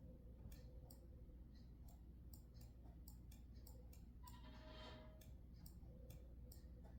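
Faint, irregular sharp clicks, about fifteen, with a short buzzy pitched sound lasting about a second, some four seconds in.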